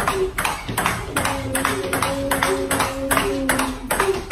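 Fast table tennis rally: the celluloid ball clicking off the paddles and table in a quick, even rhythm, about three hits a second. A held pitched tone sounds from about a second in until near the end.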